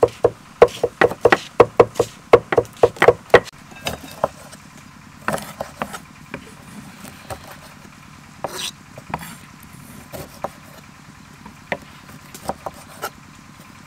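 Large kitchen knife chopping green onions on a thick wooden chopping block, a quick even run of knocks, about three a second, that stops after about three and a half seconds. Then come a few softer, scattered taps and cuts as a lime is sliced into wedges on the block, over a faint steady low hum.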